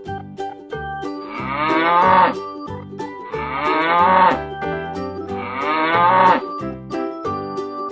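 A cow mooing three times, each moo about a second long, over children's background music with a steady beat.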